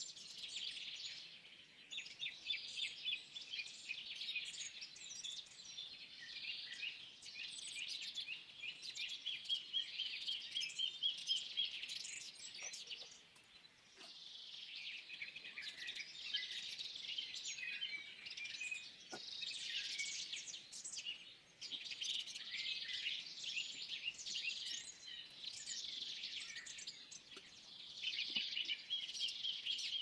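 Many birds chirping and singing at once, a busy continuous chorus of short calls and trills, with a brief lull about halfway through.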